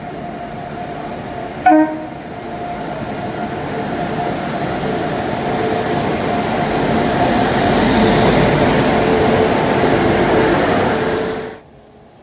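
WAP-7 electric locomotive hauling LHB coaches past a platform: a short horn toot about two seconds in, then the running noise of the locomotive and coaches growing louder as they pass close, stopping abruptly just before the end.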